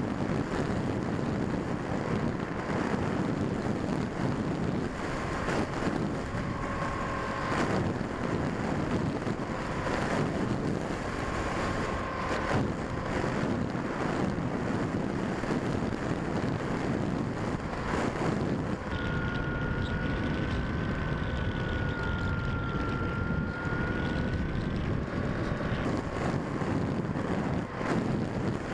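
Steady wind rush over the microphone of a Quanum Observer FPV plane gliding with its motor throttled off. Faint thin whistles that drift a little in pitch come and go over the rush, with a few short knocks.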